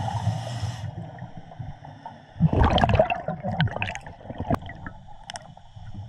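Scuba diver breathing through a regulator underwater: a short hiss of inhalation at the start, then a gurgling rush of exhaled bubbles about two and a half seconds in, followed by a few small clicks.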